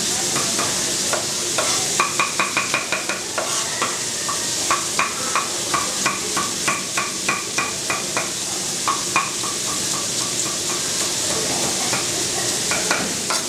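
Chef's knife dicing red bell pepper on a wooden chopping block: runs of quick taps, about six a second, over the steady sizzle of meat frying in a pan.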